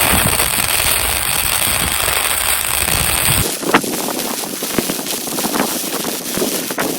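Welding arc crackling and spitting while the cracks in a lawn-tractor mower deck are welded up. About halfway in the sound turns thinner, into rapid sharp crackles.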